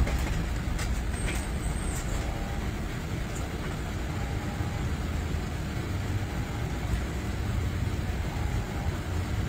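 Steady rumble of a moving ambulance heard from inside its patient compartment: engine and road noise.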